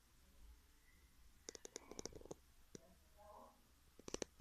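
Faint, light clicks and taps: a quick run of them about one and a half seconds in, a single one a little later, and another run near the end.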